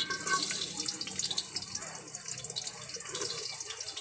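Chopped garlic hitting hot cooking oil in a metal wok and sizzling, with a dense fine crackle that starts as the garlic goes in.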